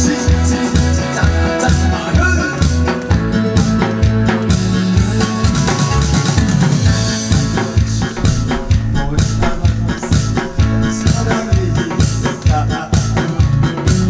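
Instrumental music with a steady drum beat and pulsing bass, played loud, with no singing.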